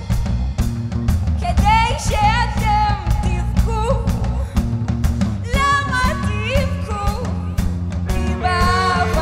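Live rock-pop band playing a full arrangement, with drum kit beat, bass and electric guitars, while a female lead singer sings a long, ornamented melodic line over it.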